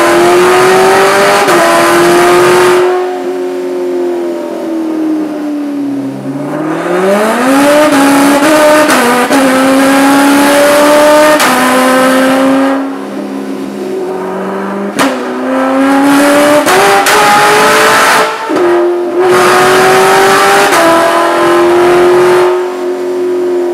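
C7 Corvette's supercharged V8 running loud on a chassis dyno. The engine note is held steady for a few seconds at a time, then climbs and falls as it is revved, with several sudden drops in level.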